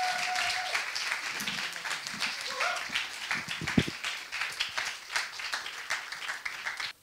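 Live audience applauding, many hands clapping, with one louder knock about halfway through. The clapping slowly dies down and then cuts off suddenly near the end.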